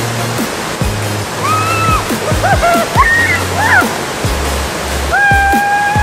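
Background music with a steady drum beat, held bass notes and a high gliding melody, laid over the steady rush of a waterfall.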